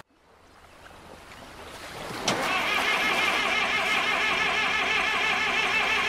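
Excavator engine starting: the sound swells up out of silence over about two seconds, then a sharp click, after which the engine runs steadily.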